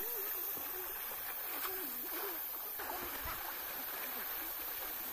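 River water rushing and splashing around several men wading across the current, with faint voices calling in the first couple of seconds.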